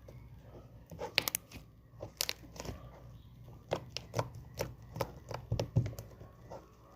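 Slime being squished and pressed by hand, giving short sticky pops and clicks at irregular intervals, about two a second.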